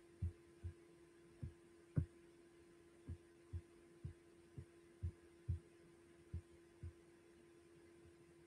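A series of about a dozen short, dull, low thumps, falling roughly in pairs over some seven seconds, over a steady electrical hum.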